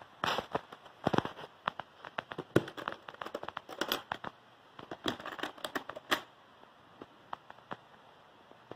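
Handling noise: scattered sharp clicks and crackles, busiest in the first six seconds and sparse after, as the wooden toolbox is handled and its lid opened.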